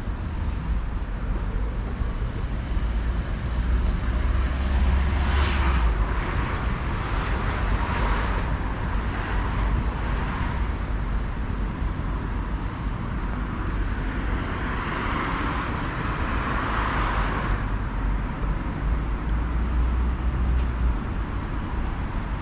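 City street traffic: a steady low rumble, with vehicles passing twice, their tyre and engine noise swelling about five seconds in and again about two-thirds of the way through.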